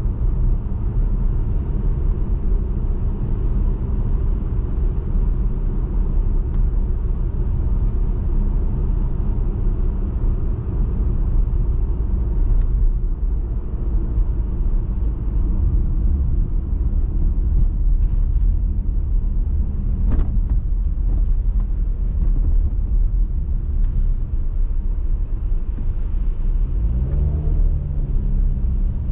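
A car driving on a highway: a steady low rumble of road and engine noise, with a few faint clicks and a rising engine tone near the end.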